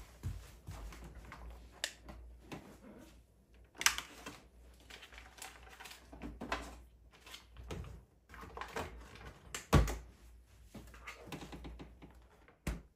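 Irregular knocks and clicks of objects being handled in a small room, the loudest about four and ten seconds in, over a low hum.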